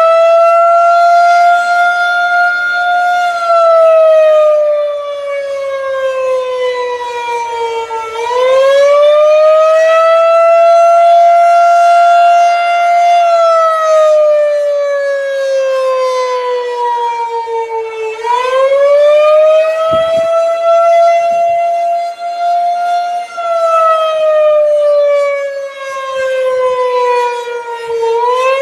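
Federal Signal 2001-130 electromechanical outdoor warning siren sounding the wailing attack signal. Its pitch rises quickly, holds for a few seconds, then slowly falls, repeating about every ten seconds, nearly three times here. Loudness swells and dips as it goes.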